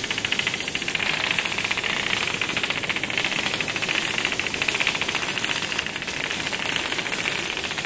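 A swarm of Hexbug Nano vibrating micro-robots buzzing and skittering over a tabletop arena, their tiny vibration motors and legs making a steady, dense rattle of very fast ticks.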